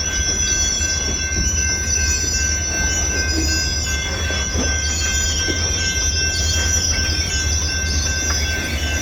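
Freight train rolling past, with a steady low rumble and a high, wavering squeal of steel wheels against the rails.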